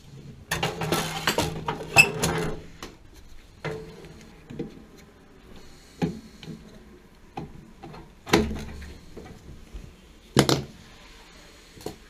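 Handling noise from gloved hands working among a gas water heater's control valve, flex lines and piping: a stretch of rustling and clicks at the start, then single knocks every second or two.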